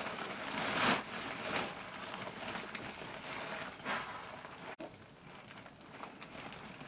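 A plastic sack rustling and dry rice grains hissing as a hand scoops rice out of it. There are several louder rustles, the strongest about a second in.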